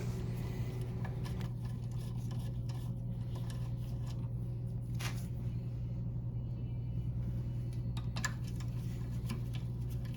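A steady low hum with a few faint light clicks of small metal parts as loosened carburetor mounting bolts are taken out by hand, one near the middle and another about two seconds later.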